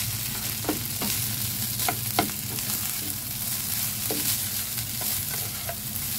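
Rice being stir-fried in a hot nonstick pan: a steady sizzle, broken by a few sharp taps and scrapes of a slotted spatula against the pan as the rice is turned over.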